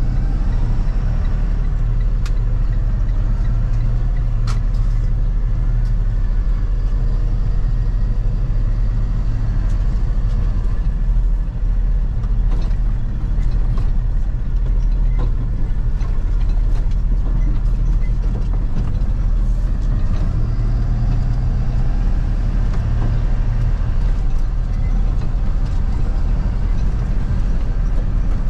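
Box truck under way on the road: a steady low rumble of engine and road noise.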